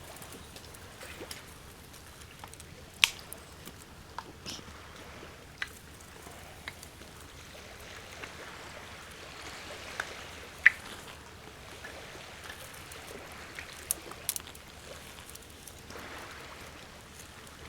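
A small campfire of fatwood shavings and birch bark tinder being lit: scattered sharp cracks and clicks over a low, steady hiss.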